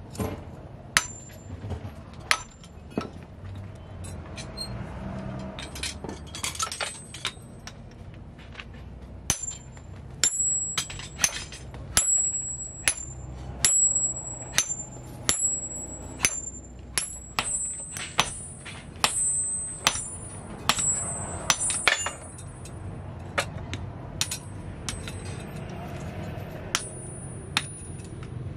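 Hammer blows on a steel drift set in the eye of a red-hot adze-axe head, each a sharp metallic strike, many with a high ringing after them. The blows come irregularly, sparse at first and about two a second through the middle, then thinning out near the end.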